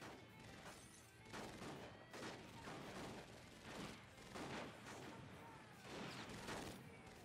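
Pistol gunfire in a shootout: a string of sharp shots roughly once a second, some followed by a short falling whine.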